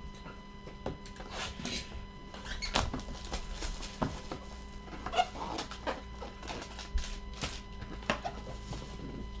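Foil-wrapped trading card packs crinkling and rustling as gloved hands pick them up and shuffle them, with a few light knocks as packs are set down.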